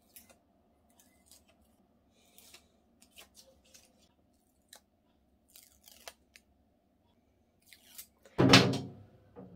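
Faint scattered clicks and light rustles of a T5 grow-light bar and its cable being handled, then one loud, short sound about eight and a half seconds in.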